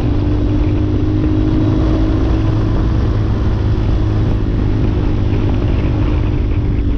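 Hawk 250 dual-sport motorcycle's single-cylinder engine running at a steady cruise, heard from on board with wind and road noise over a low, even rumble.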